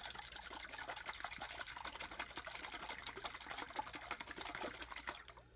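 Avocado-lime dressing sloshing inside a lidded glass mason jar shaken hard by hand, a quick run of splashing strokes that dies away just before the end.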